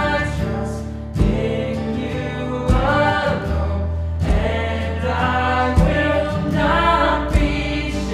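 Live acoustic worship song: several voices singing over acoustic guitar, electric bass and cajón, with a strong accent about every second and a half.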